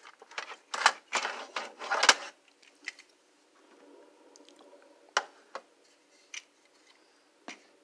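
Plastic Marx toy train cars being picked up, moved and set down on a tabletop: a quick run of clicks and rattles in the first two seconds or so, then a few single knocks.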